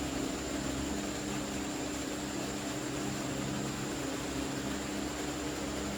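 Steady machine hum with hiss and a faint high whine, unchanging throughout.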